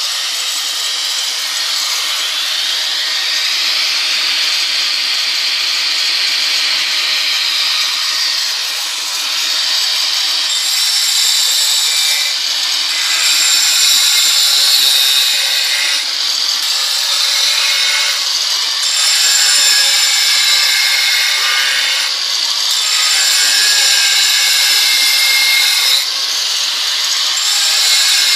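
Angle grinder with a 125 mm diamond blade dry-grinding the edge of a granite slab: a continuous high-pitched whine and grinding hiss. The level rises and falls every few seconds as the blade is worked along the stone.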